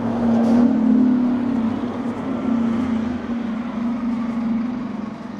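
A motor vehicle's engine running steadily: a low hum that grows louder in the first second, then eases gradually.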